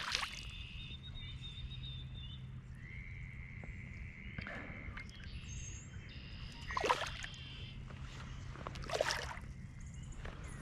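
Quiet outdoor ambience with faint bird calls: thin whistled notes and a short trill. There are a few brief rustles or clicks near the start and about seven and nine seconds in.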